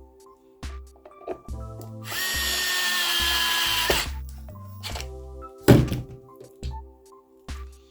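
A small power tool, such as a cordless drill or driver, runs for about two seconds with a slight sag in pitch as it stops. A sharp knock follows about two seconds later, over background music with a steady beat.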